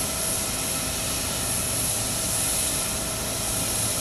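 Steady jet whine and rushing noise from a parked airliner: a high hiss over a low rumble, with no breaks.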